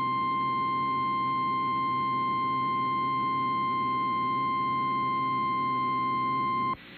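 A long, steady single-pitch alert tone near 1 kHz over a low steady hum, cutting off abruptly near the end: the NOAA Weather Radio 1050 Hz warning alarm tone that precedes a weather alert broadcast.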